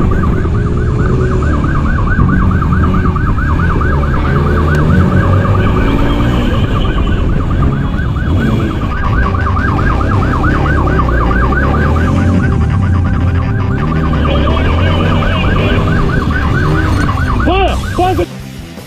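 Police motorcycle siren on a fast warbling yelp, over the low rumble of the motorcycle's engine and wind during a pursuit. The siren cuts off suddenly near the end.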